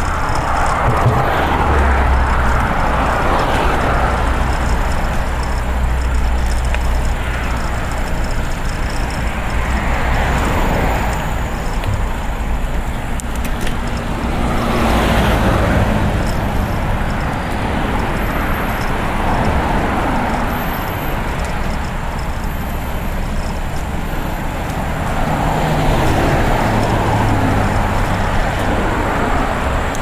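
Road traffic passing close by, one vehicle after another swelling and fading, over a steady low hum.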